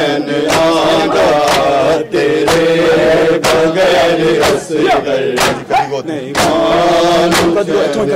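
Men's voices chanting a Punjabi noha (a Shia lament) in unison, with sharp hand slaps of matam chest-beating every second or so.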